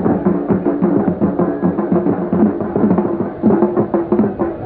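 Music: drums beating a fast, even rhythm under a sustained melody line that steps between notes.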